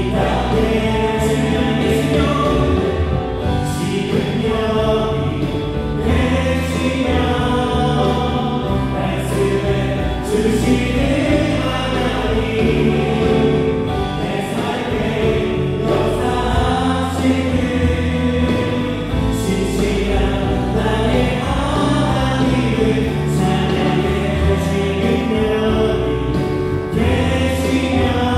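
Contemporary worship band playing live: electric guitar, bass guitar, keyboards and drums, with drum and cymbal hits through the music.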